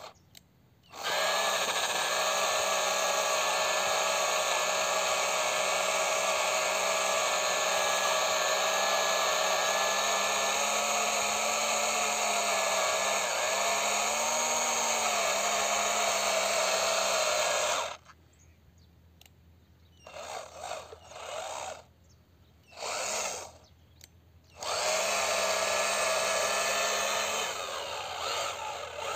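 Small electric drive motor of a homemade RC toy tractor whining steadily as it pulls a loaded trolley through loose dirt. It runs for most of the first two-thirds, then comes in a few short bursts, then runs again for a couple of seconds near the end.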